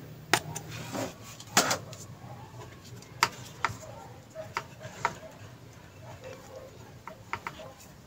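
Scattered light clicks and taps of plastic and metal parts being handled: an electric kettle's base connector and a screwdriver. One knock about one and a half seconds in is louder than the rest.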